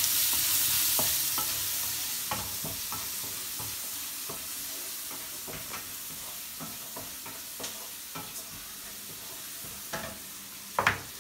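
Chopped onions sizzling in hot oil in a nonstick kadai, stirred with a wooden spatula that scrapes and clicks against the pan. The sizzle slowly fades, and there is a sharper knock near the end.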